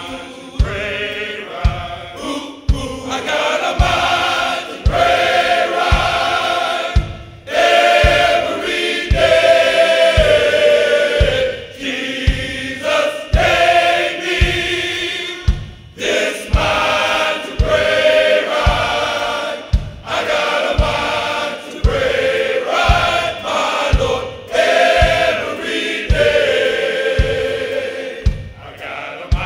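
Men's gospel choir singing in full voice, phrase after phrase, over a steady low beat of about three thumps every two seconds.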